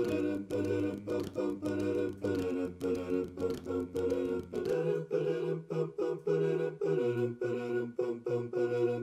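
Background music with a steady beat over held, chord-like tones; the bass note changes about five seconds in and again near seven.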